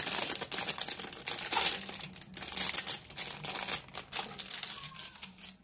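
Clear plastic packaging bag crinkling and crackling in the hands as a microphone pop filter is unwrapped and the bag is pushed aside; the crinkling dies away near the end.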